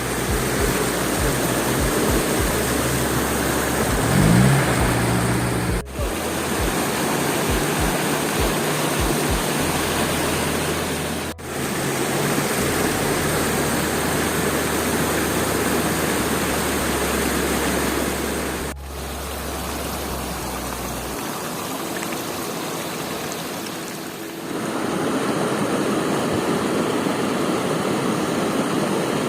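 Flowing stream rushing steadily, heard in several clips joined by brief cuts.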